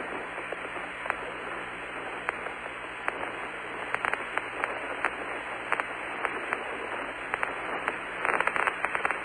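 Radio static on the Apollo lunar-surface voice link: a steady hiss with scattered clicks, turning more crackly near the end.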